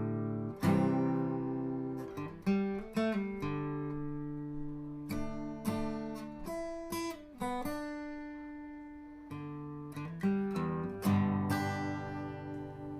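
Acoustic guitar music: chords strummed and left to ring, a new one about every second or two.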